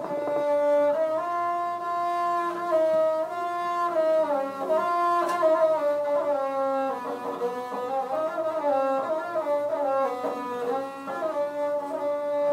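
Bedouin rababa, a single-string fiddle with a skin-covered frame body, bowed to play a melody. The notes are held and then step and slide up and down in pitch.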